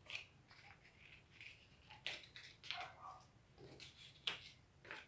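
Faint paper rustles and crackles, with a few short sharp ticks, as paper cut-outs of sea animals are handled, pulled off a wall and pressed back onto it.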